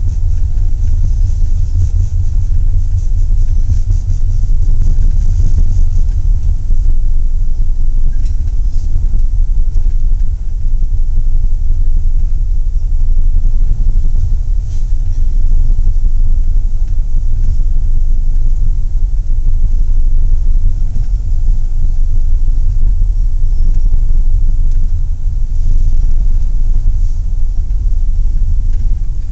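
Wuppertal Schwebebahn suspended monorail car running along its overhead steel rail, heard from inside the car as a steady, loud low rumble, with a few faint ticks.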